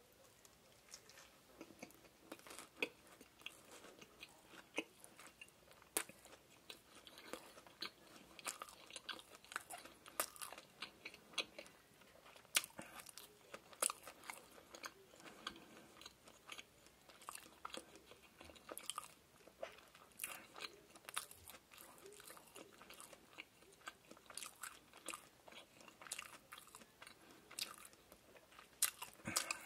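Close-miked chewing of a bite of fried shrimp burger: soft, irregular crunching and moist mouth clicks as the breaded shrimp patty and bun are chewed.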